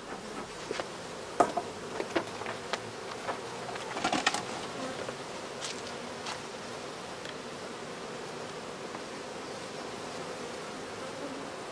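Honeybees buzzing steadily at an opened hive, with a string of sharp crackles and knocks in the first four or five seconds as the plastic cover sheet is lifted off and the frames are handled.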